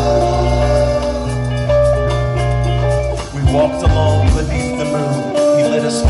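Live rock band playing an instrumental passage on acoustic guitar, electric bass, keyboard and drum kit. Sustained chords over long held bass notes give way, about three seconds in, to sharp drum hits and a choppier bass line.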